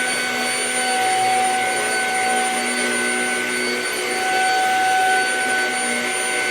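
Shark HV322 Rocket corded stick vacuum running steadily: a constant rush of air with a steady high motor whine.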